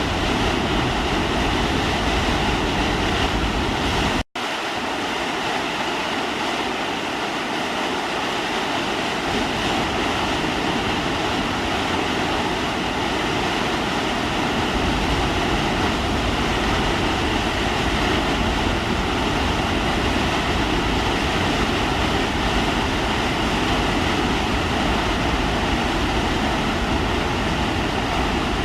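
Steady roar of a waterfall on the McCloud River. It drops out for an instant about four seconds in, and the deepest part of the roar is weaker for several seconds after.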